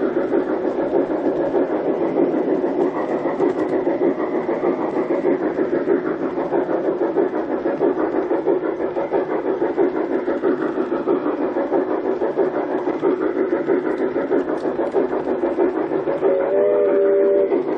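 G-scale model trains running on their track: a steady, dense rapid clatter of wheels and drive gearing, mixed with the locomotives' built-in train sound effects. Near the end, a locomotive sound unit gives a short multi-tone whistle lasting about a second.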